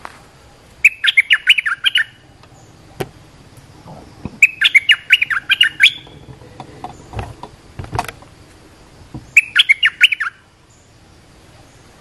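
Bulbul (merbah) calling in three bursts of quick, bubbling up-and-down notes a few seconds apart: a lure call for wild bulbuls. A few faint knocks fall between the bursts.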